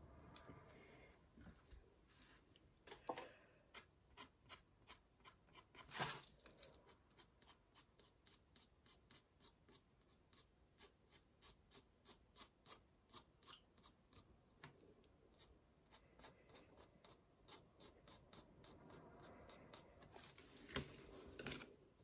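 Faint scratching of a 0.3 fine-liner pen on textured watercolour paper in quick short strokes, a few per second, with a couple of louder knocks about six seconds in and near the end.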